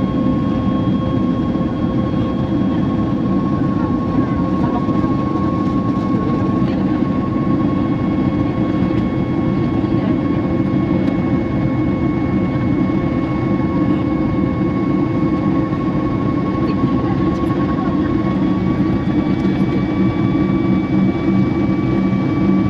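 Inside a jet airliner cabin during the climb after takeoff: the steady roar of the engines and airflow, with steady whining engine tones over it. The main whine rises slightly about two-thirds of the way through.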